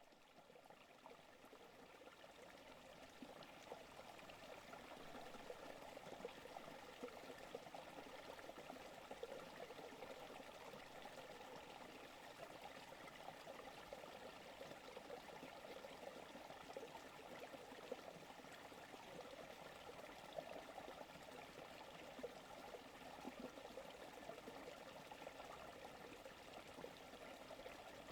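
Forest creek water flowing and trickling: a faint, steady rush that fades in over the first few seconds, then holds even.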